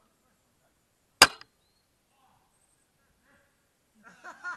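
A single sharp shot about a second in from a silenced Tokyo Marui VSR-10 G-Spec bolt-action spring airsoft sniper rifle. A voice calls out near the end.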